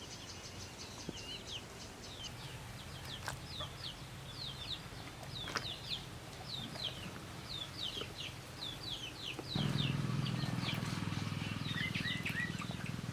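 Birds chirping, a rapid run of short high downward chirps. About two-thirds of the way through, a louder, steady low rushing noise starts suddenly and continues under them.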